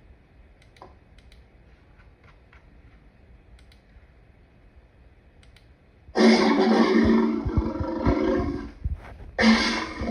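Lion roaring: two long, loud roars, the first starting about six seconds in and the second after a brief break, running on. Before them, only a low hiss and faint clicks.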